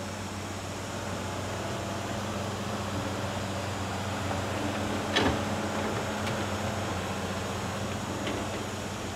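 A crawler excavator's diesel engine runs steadily as it swings a full bucket of soil over to the dump truck. About five seconds in there is one sharp clatter as the earth drops into the truck's steel bed.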